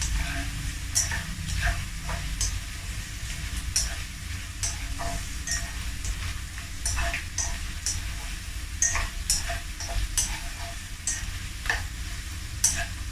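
Ikan bilis (dried anchovies) frying in hot oil: a steady sizzle broken by frequent sharp crackles and pops.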